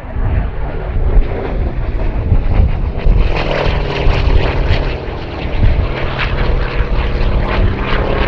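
The Hawker Fury Mk II's Bristol Centaurus XVIII, an 18-cylinder two-row sleeve-valve radial engine, drones loudly with its propeller in flight, growing brighter and fuller about three seconds in.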